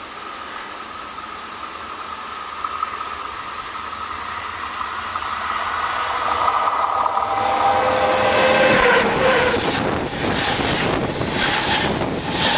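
A full-size electric train approaching on the main line and running directly overhead. The noise grows steadily louder with a whine that drops in pitch as the locomotive arrives, about nine seconds in. From about ten seconds in, loud rushing and rapid clacking of wheels pass above.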